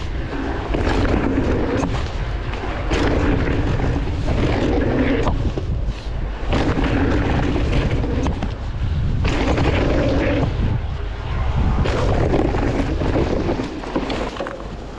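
Mountain bike ridden fast down a dirt trail, heard from the rider's camera: steady wind buffeting and tyre rumble, with repeated knocks and rattles from the bike over bumps.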